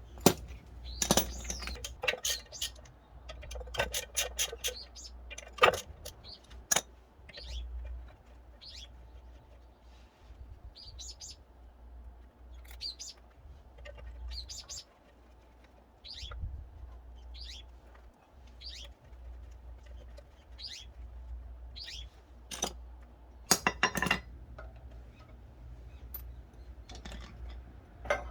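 A small bird chirping over and over, short high falling calls about once a second, with a few sharp clicks and knocks in between.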